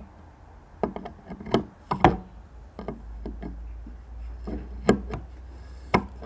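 A string of irregular clicks and knocks, a few of them sharp and loud, as the engine's camshaft is turned over to bring the cam lobes away from the valves for checking valve clearance.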